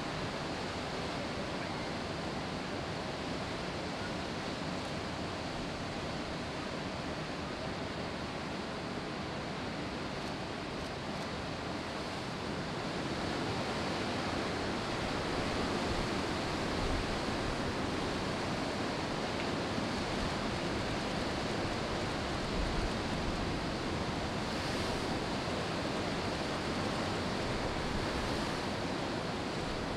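Steady rush of ocean surf breaking on a reef, an even, continuous noise that grows a little louder about halfway through.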